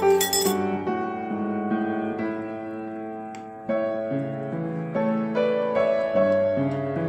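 Background piano music, notes played one after another over held lower notes.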